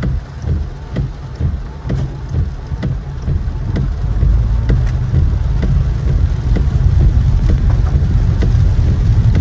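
Rain pattering on a car's roof and windshield, heard from inside the cabin, over a low rumble of the car. About four seconds in the rumble grows louder and steadier as the car moves off.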